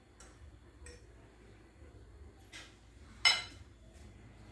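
Metal cutlery clinking against a ceramic plate a few times while eating. The loudest clink, a little past three seconds in, rings briefly.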